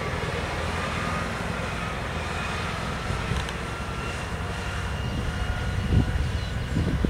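Diesel engine of an airport crash tender running steadily as the big truck drives slowly past, with a faint high whine over the low rumble. Near the end it grows louder, with wind gusting on the microphone.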